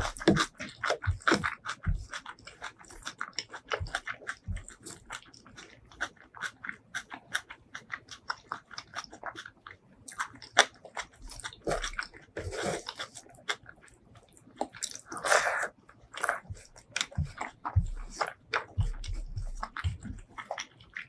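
Close-miked ASMR eating sounds: steady wet chewing with many quick mouth clicks and smacks, and two longer, louder noisy mouth sounds about twelve and fifteen seconds in.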